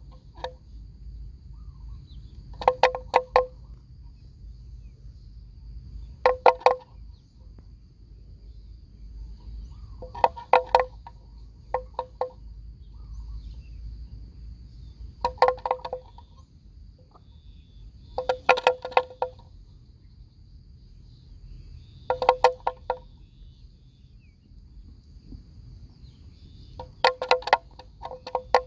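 A bell hung on a grazing water buffalo's neck clanking in short runs of a few rapid strokes every three to four seconds as the animal tugs at grass.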